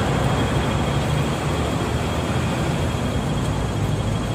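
Steady city street noise: traffic with a low rumble.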